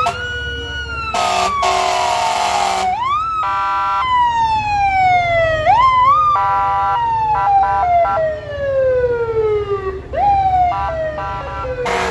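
Several emergency vehicle sirens wailing together, overlapping, each sweep rising quickly and then falling slowly in pitch. Short horn beeps sound in between, and a long loud horn blast comes about a second in.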